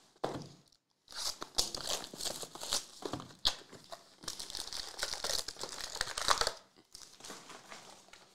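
Plastic shrink-wrap on sealed trading-card boxes crinkling and tearing as it is handled, for about five seconds with one sharp snap midway, then fainter rustling near the end.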